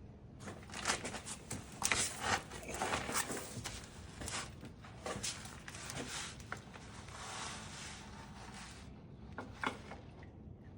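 Close handling noises: soft rubbing and scattered small clicks and knocks of hands working with parts, with a steadier light hiss for a couple of seconds in the middle.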